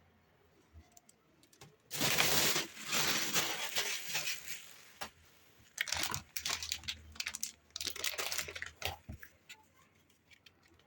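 Rustling and crinkling handling noise with scattered clicks, in two stretches: one starting about two seconds in, the other about six seconds in.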